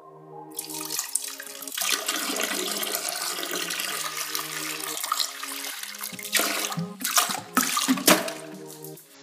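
Orange drink poured from a plastic bottle, splashing steadily into the water of a toilet bowl, with a few louder uneven splashes near the end. Background music plays along.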